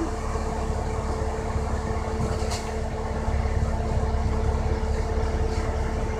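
A bus's engine and running gear heard from inside the cabin: a steady low drone and rumble with a constant hum over it, and one faint click about two and a half seconds in.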